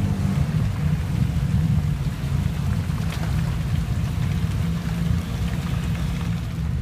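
Low, steady engine rumble of an old off-road pickup truck on big tyres, crawling slowly through mud.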